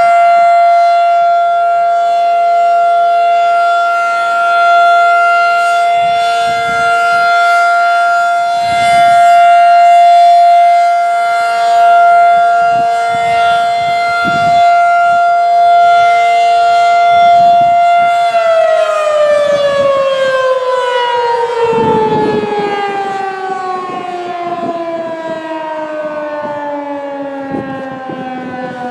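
Federal Signal 2001-SRN outdoor warning siren sounding a loud, steady alert tone that swells and fades every few seconds. About two-thirds of the way through, the tone stops holding and slowly falls in pitch as the siren winds down at the end of its one-minute alert.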